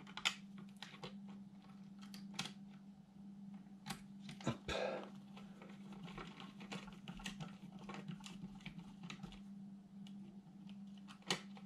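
Faint, irregular clicks and taps of a hex driver and small parts being handled on a Losi 22 V4 1/10 RC buggy, with a brief rustle about halfway through, over a steady low hum.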